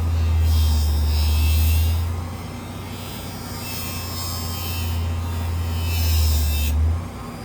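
An electric power tool's motor running with a steady low hum, with patches of hissy scrubbing as it works the metal of a folding knife during cleaning. The motor cuts off about seven seconds in.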